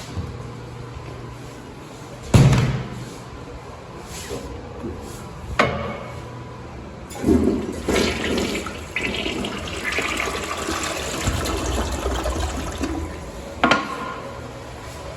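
A toilet flushing: water rushes for about six seconds in the middle of the clip. Sharp knocks come before it and just after it, the loudest a few seconds in.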